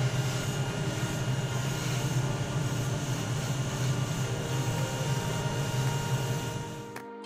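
Spray booth extractor fan and airbrush air running together: a steady low hum under a hiss of moving air. It cuts off shortly before the end.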